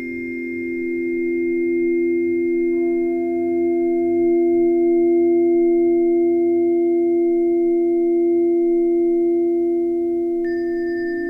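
Sustained pure tones, several pitches held together and ringing steadily; a new higher tone joins about three seconds in and another is struck near the end.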